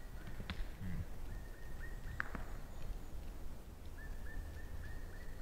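Forest ambience with a steady low rumble, two sharp clicks, and runs of faint short high-pitched notes, about three a second.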